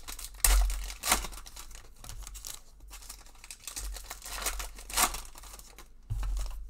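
Foil Panini Prizm basketball card pack wrappers being torn open and crinkled by hand, in a few sharp rips with quieter rustling between. The loudest rips come about half a second in and near the end.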